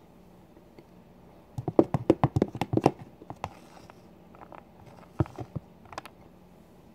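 A clear plastic food tub handled close to the microphone: a fast rattling run of plastic clicks and knocks about two seconds in, then a few single clicks.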